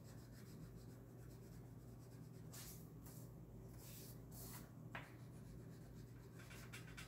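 Faint scratching of a black crayon on paper, in a few short coloring strokes.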